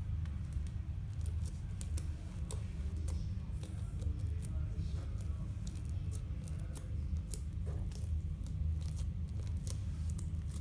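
Fluffy slime being squished and stretched by hand, giving many small sticky clicks and crackles at irregular intervals, over a steady low hum.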